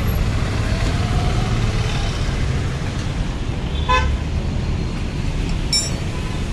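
Road traffic running steadily, with two short vehicle horn beeps, the second higher-pitched, about four and six seconds in.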